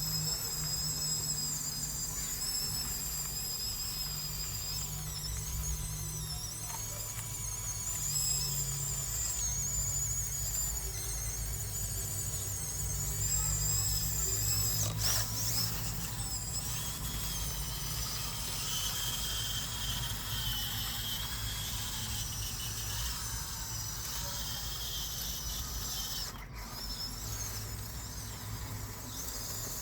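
Huina 1554 RC bulldozer's small electric drive motors and plastic gearboxes whining at a high pitch, the whine wavering in pitch as the toy works, over a steady low hum.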